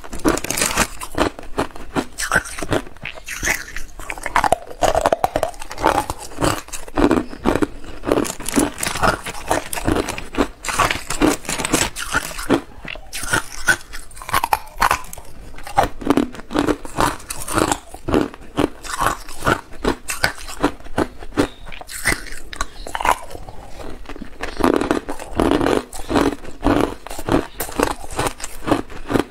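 Hard, clear ice cubes being bitten and chewed by a person: a dense run of crisp cracks and crunches in quick succession as the ice breaks between the teeth.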